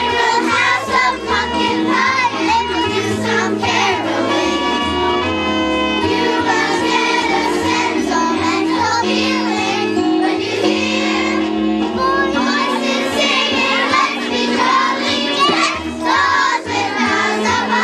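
Children's choir singing in unison over instrumental accompaniment with a steady bass line.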